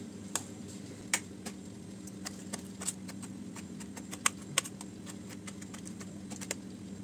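Knife blade clicking against a steel plate at irregular intervals while slicing soft cooked sponge gourd, over a faint steady hum.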